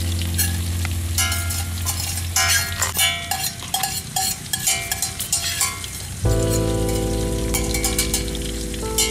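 Pork frying in hot oil in a wok, crackling and spitting densely for about the first six seconds, then dying down. Steady background music runs underneath, changing chord about six seconds in.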